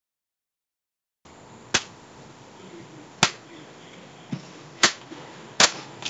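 AI-generated punching sound effect, made by AudioGen from the text prompt "punching a man". Starting about a second in, five sharp punch impacts land at uneven intervals over a faint hiss.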